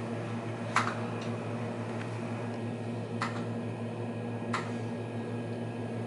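Steady electrical hum of running computer and CRT monitor equipment, with a low drone, broken by about four short sharp clicks, the loudest about a second in.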